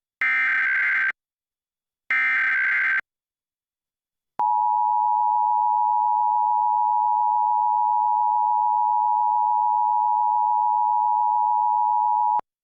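Emergency Alert System alert opening: the last two of the three short bursts of SAME header data tones, about a second each with a second's gap, then after a pause the EAS two-tone attention signal sounding steadily for about eight seconds and cutting off sharply.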